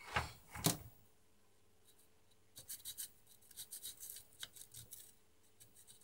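Two short handling knocks on a vacuum cleaner motor, then a run of light, irregular scraping and scratching as a small screwdriver works at the motor's carbon-brush holder.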